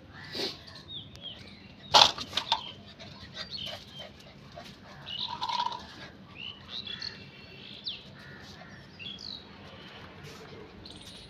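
Small birds chirping now and then in short high notes, with a single sharp click about two seconds in.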